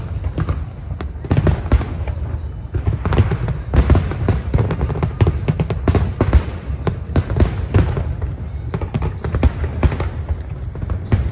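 Aerial fireworks shells bursting in a rapid, unbroken run of deep booms and sharp cracks.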